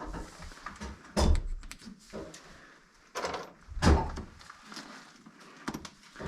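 Knocks and clunks of hands-on plumbing work, tools and pipe being handled, with louder thumps about one, three and four seconds in.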